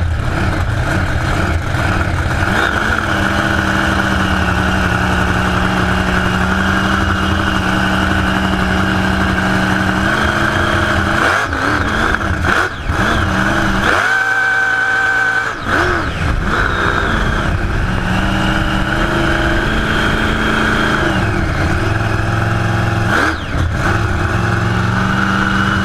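Supercharged V8 with open chrome exhaust headers driving a boat at speed, a loud steady engine note whose revs waver a few times. About halfway through the low rumble drops out for a second or so, leaving only a higher steady tone.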